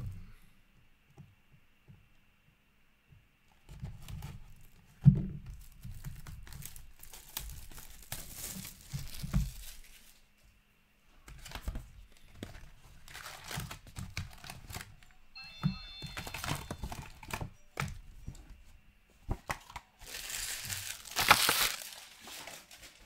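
Plastic shrink-wrap torn off a hobby box of hockey trading cards and the foil card packs pulled out and handled, in several bouts of crinkling and tearing, the loudest near the end. A sharp knock about five seconds in.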